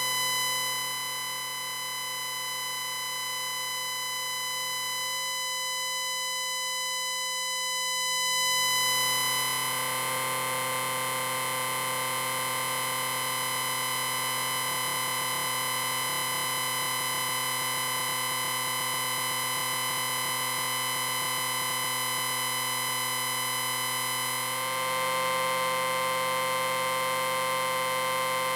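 Electric Ring Long sci-fi sound effect: a sustained electric ringing drone made of many steady tones stacked together. It swells brighter about nine seconds in and thickens again a few seconds before the end.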